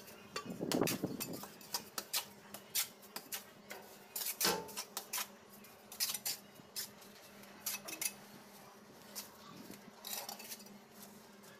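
Steel trowel clinking and scraping against ceramic wall tiles and cement mortar. The sharp metal-on-tile clicks are irregular, with heavier scraping near the start and again about four and a half seconds in.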